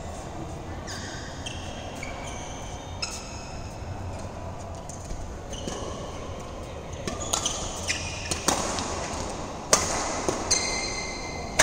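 Badminton doubles rally: rackets smacking the shuttlecock in sharp cracks, mixed with short high squeaks of sneakers on the court mat. The play gets busier and louder in the second half.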